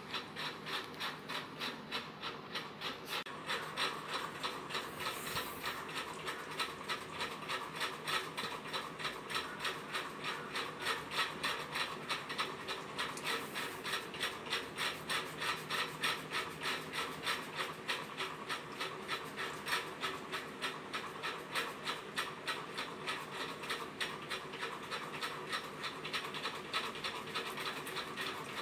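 Pomeranian puppy chewing dry kibble: a steady rhythm of crisp crunches, a few a second.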